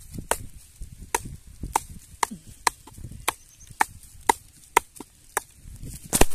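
Footsteps while walking, heard as sharp clicks about two a second, with a louder one near the end.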